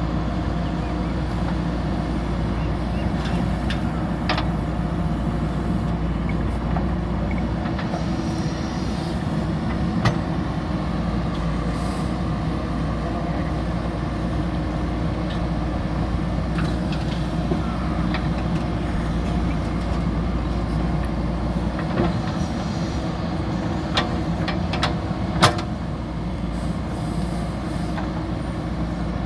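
JCB backhoe loader's diesel engine running steadily under working load, with a few sharp knocks, mostly near the end.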